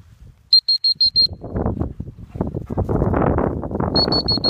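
Two quick runs of five short, high-pitched electronic beeps at one steady pitch, the first just under a second in and the second near the end. Between them, from about a second and a half in, comes a loud, even rushing noise with no pitch.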